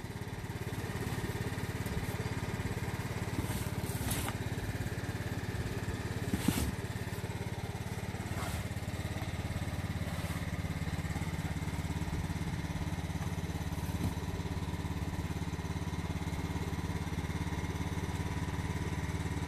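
An engine running steadily, with a few brief scuffs and knocks of rubber as a large inner tube is dragged out of a backhoe tire.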